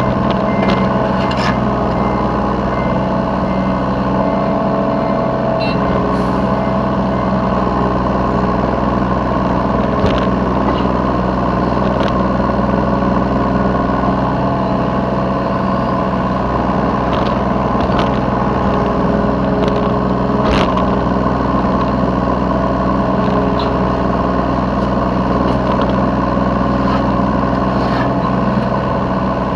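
Yanmar B3 Sigma mini excavator's diesel engine running steadily under work, heard close from the operator's seat, with occasional sharp knocks and clanks from the working machine.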